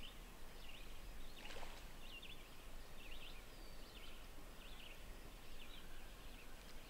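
Faint birdsong over a quiet lakeside background: short chirping calls repeat every second or so, with one brief louder sound about a second and a half in.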